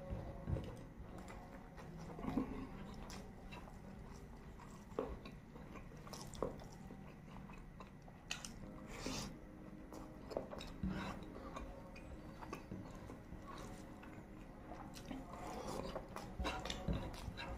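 A person chewing a mouthful of rice with peas close to the microphone, with scattered wet mouth clicks and smacks, and now and then the soft scrape of fingers gathering rice off a wooden chopping board.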